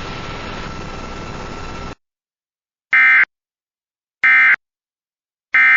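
Steady radio-style static hiss with a faint steady tone, cutting off suddenly about two seconds in. Then come three short, shrill Emergency Alert System data bursts, about 1.3 seconds apart: the SAME end-of-message code sent three times, which marks the end of the alert.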